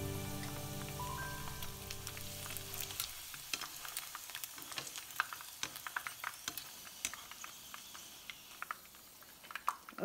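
Egg-white and cornstarch-coated chicken breast pieces frying in hot oil, with scattered crackles and pops that thin out toward the end. Background music fades out over the first three seconds.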